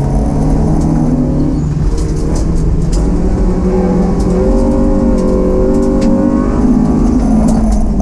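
Volkswagen Lupo GTI rallycross car's 1.6-litre four-cylinder engine heard from inside the cabin, revving hard under acceleration: the pitch climbs from about three seconds in, peaks around six seconds and drops back near the end. Scattered short clicks and knocks come through over the engine.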